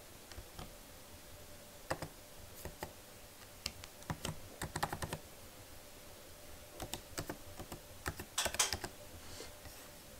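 Typing a password on a 2017 MacBook Pro's butterfly-switch keyboard: irregular runs of light key clicks, the busiest near the middle and about two-thirds through.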